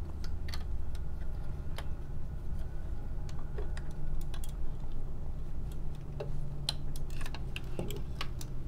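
Scattered light plastic clicks and clacks from the Maketoys Howling Meteor transforming robot figure being handled, as its torso tabs are pushed into their slots.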